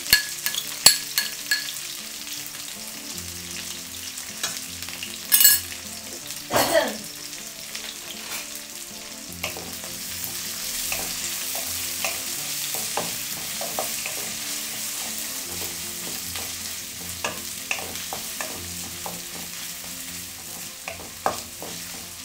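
Sliced onion, garlic and ginger sizzling in hot oil in a stainless steel wok, stirred with a wooden spatula that scrapes and taps against the pan. There are several sharp taps and scrapes in the first seven seconds, then a steady sizzle with lighter stirring.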